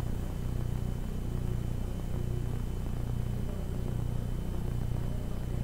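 Steady low electrical hum, a mains-type buzz with a faint slow pulsing.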